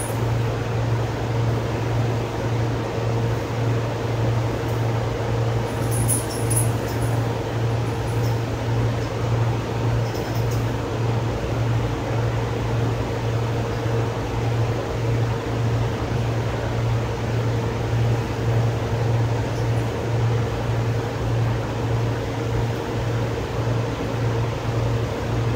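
Steady hum of a running electric machine: a low drone that pulses evenly about twice a second, with a fainter steady higher tone above it.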